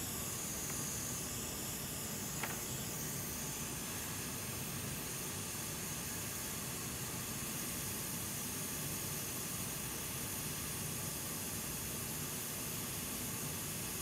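Hot air rework station blowing a steady hiss onto a graphics card's power connector, heating its low-melt solder to desolder it. A faint click about two and a half seconds in.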